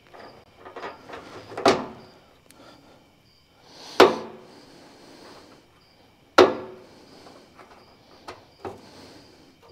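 Metal knocks and clunks from a new metal fuel tank and its hanging strap being pushed up into place under a car: three loud knocks a couple of seconds apart, then lighter taps near the end.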